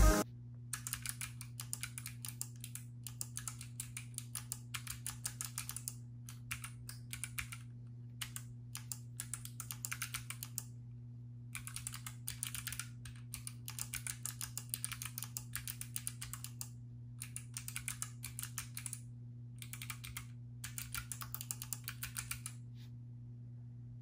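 Typing on a Lily58 Pro split mechanical keyboard fitted with Kailh Box Navy thick-click switches: fast runs of sharp clicks in bursts with short pauses, stopping about a second before the end.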